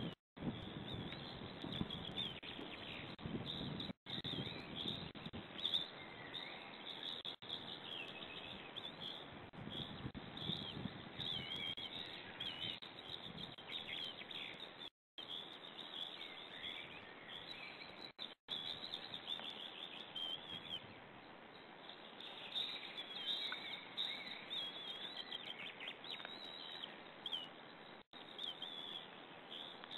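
Repeated high-pitched bird chirps and calls over a low rumbling noise that is strongest in the first half. The sound cuts out completely for a moment several times.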